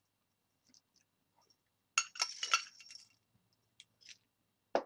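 Glass bowl holding dry Cocoa Puffs cereal clinking and rattling as it is handled: a quick cluster of clinks about two seconds in, then a few lighter clicks.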